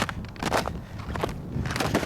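Footsteps crunching through ice-crusted snow, a crackly crunch about twice a second, with low wind rumble on the microphone beneath.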